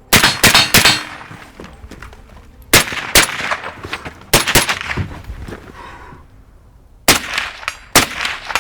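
Gunshots fired during a timed shooting drill: a fast string of shots in the first second, then more shots in pairs and singles spread over the following seven seconds, each with a short echo.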